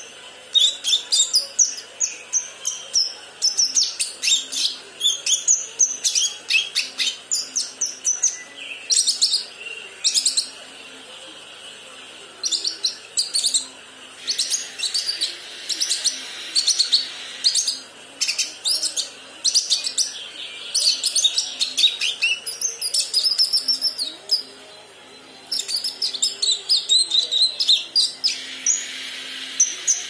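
Young leafbird (kinoi) practising its song: quick runs of high, sharp chirps and twitters in bursts, with brief pauses between phrases. Under it runs a faint steady low hum.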